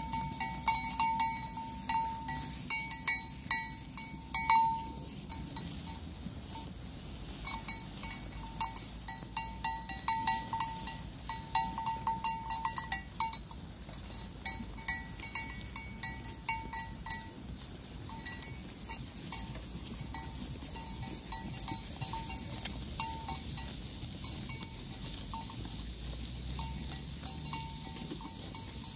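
Small bells worn by grazing sheep clanking in short, irregular strokes at one pitch, busiest in the first half, among the crisp tearing of grass as the sheep crop it close by.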